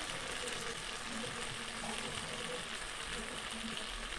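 Chicken and okra sizzling steadily in a pan, with a little water just added to start a broth.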